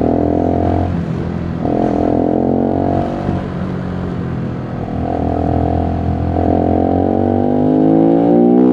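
Voge 125R's 125 cc single-cylinder four-stroke engine under way, its pitch dropping and climbing several times as the throttle opens and closes, then rising steadily over the last few seconds as the bike accelerates.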